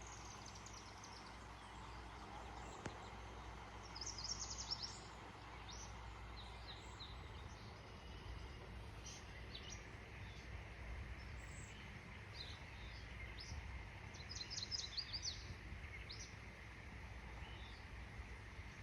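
Small birds chirping in quick clusters of short, high notes, loudest about four seconds in and again near three-quarters through, over a faint steady rush of water from a backyard waterfall.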